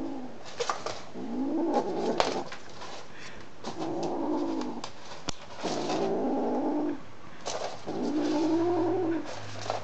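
A cat gives four drawn-out calls of about a second each, each rising and then falling in pitch, while gripping a sock in its mouth. Short clicks and rustles from the sock being tugged fall between the calls.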